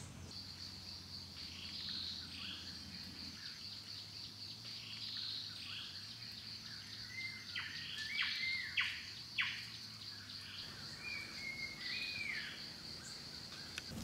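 Forest ambience: a steady high-pitched insect drone with birds chirping and whistling over it. The loudest calls come as a quick cluster of sharp, falling notes about eight to nine seconds in.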